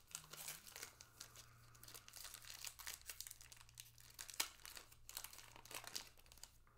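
Wrapper of a 2024 Topps Heritage baseball card pack being torn open and crinkled in the hands: irregular crackling, with one sharper crackle about four and a half seconds in.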